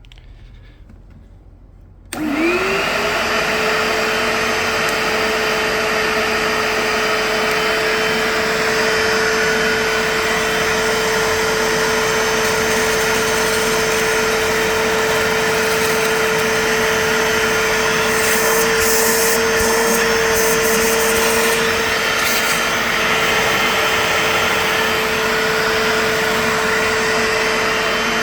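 Bissell Little Green ProHeat portable carpet cleaner switched on about two seconds in, its motor spinning up to a steady whine and running on. Briefly, about two-thirds of the way through, a crackly hiss sounds over it.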